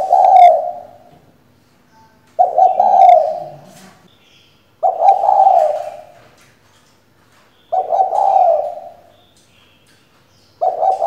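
Female spotted dove cooing: five short coo phrases, about one every two and a half to three seconds, with quiet between them.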